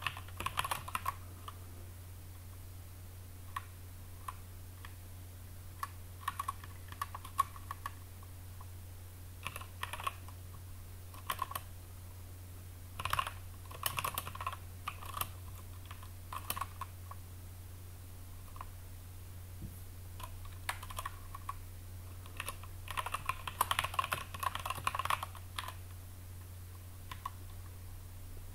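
Computer keyboard typing in bursts of quick keystrokes separated by pauses of a few seconds, the longest flurry about halfway through. A steady low hum runs underneath.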